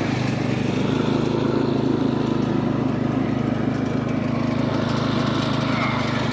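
Riding lawn mower's engine running steadily under load while mowing, blade engaged.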